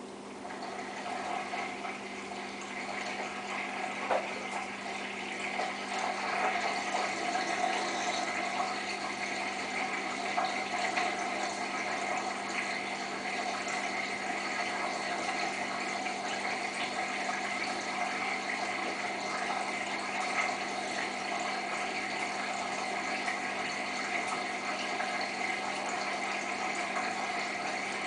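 Samsung WF8804RPA washing machine draining at the start of its final spin: the drain pump runs with a steady hum while water rushes and gurgles through it. A single knock sounds about four seconds in.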